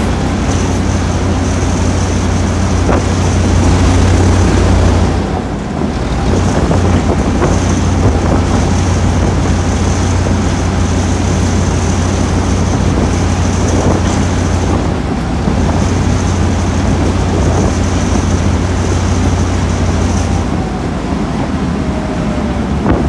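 Class 08 diesel shunter's English Electric six-cylinder engine running with a steady low rumble that dips briefly about five seconds in and eases near the end.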